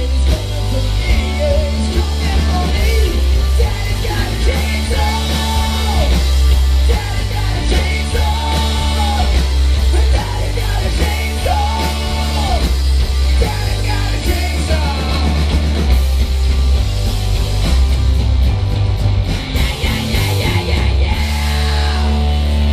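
Live rock band playing loudly: electric guitars, bass and drums under a shouted, sung vocal. Near the end the singing stops and held chords ring on with a steady hum.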